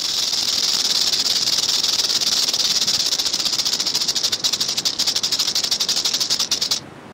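A continuous high-pitched buzzing rattle, a hiss with a very fast fine pulsing in it, that cuts off suddenly near the end.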